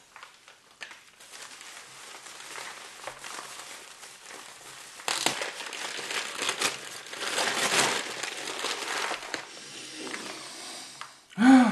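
Plastic bubble wrap and paper crinkling and rustling as a wrapped gift is unwrapped by hand, louder about halfway through and again a couple of seconds later.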